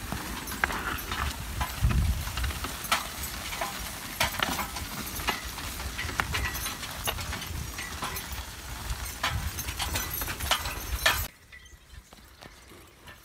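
Horse-drawn riding plow pulled by three draft horses: frequent metal clinks and rattles from the plow and harness, with hooves clopping, over a steady low rumble. About eleven seconds in the sound drops suddenly to a faint background.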